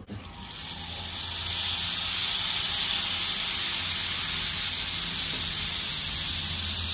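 Jalebi batter sizzling as it deep-fries in hot oil in a pan: a steady hiss that builds up over the first second or so.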